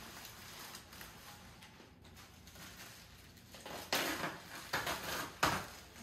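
Plastic bubble-wrap packaging crinkling and rustling as it is gripped and pulled, with louder crackling bursts in the second half.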